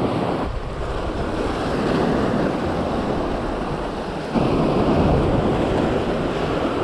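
Surf washing and breaking against the boulders of a rock jetty, with wind buffeting the microphone. The rush steps up louder about four seconds in.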